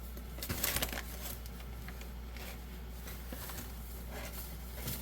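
A cup of white sugar poured into grape juice in a pot, a short grainy rush of falling sugar about a second in, followed by a few faint clinks of the cup and utensils.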